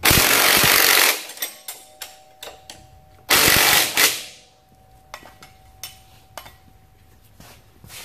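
Cordless impact wrench hammering in two bursts, the first about a second long and the second, shorter one about three seconds in, as it tightens bolts on a motorcycle's rear wheel and brake assembly. Faint clicks of metal parts being handled follow.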